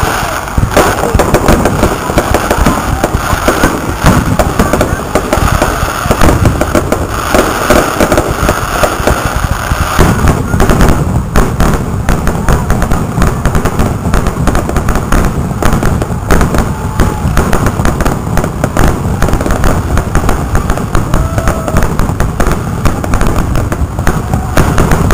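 Aerial fireworks shells bursting in a loud, rapid, continuous barrage, the bangs and crackles running into one another.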